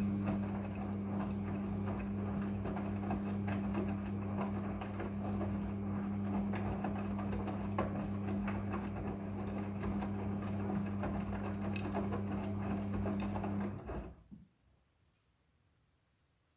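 Midea front-loading washing machine running: a steady low hum with a rough, busy noise over it, cutting off sharply about 14 seconds in.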